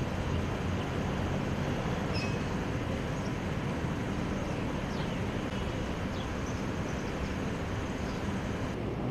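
Steady low outdoor background rumble, like distant traffic, with a few faint short high chirps.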